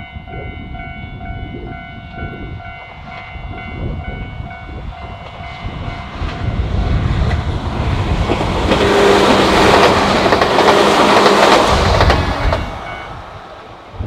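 Japanese level-crossing alarm ringing steadily, then a Nagano Electric Railway train passing over the crossing. The train builds up from about six seconds in and is loudest for several seconds, drowning out the alarm, then fades away near the end.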